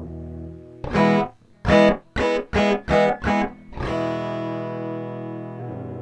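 Electric guitar, a Squier Affinity Telecaster, played through an Earthquaker Devices Space Spiral modulated delay pedal: a chord, then a quick run of short choppy chords about three a second, then a chord left ringing, its pitch wavering near the end.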